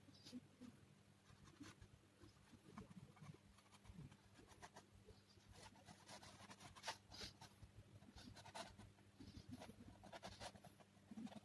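Faint scratching of a graphite pencil drawing long lines on a white painting board, in separate strokes, over a low steady hum.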